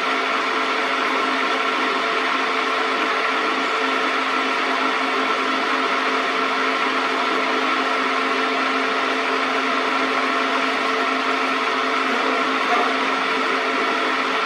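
Metal lathe running steadily, its motor and gearing giving an even whirring hum with a few steady tones, and one brief click near the end.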